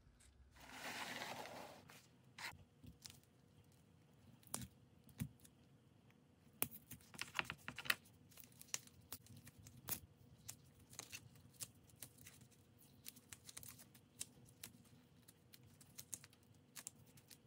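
Faint crackling and tearing of brittle old paper insulation being peeled by hand off a push-pull output transformer's coil: a rustling tear lasting about a second near the start, then many small scattered clicks and crackles as pieces are picked away.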